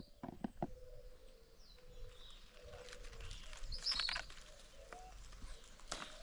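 Songbirds chirping, with a few short clicks in the first second.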